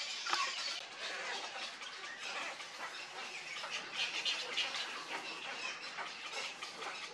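A cattle egret colony with young birds, many calling at once: a dense, unbroken chatter of overlapping calls.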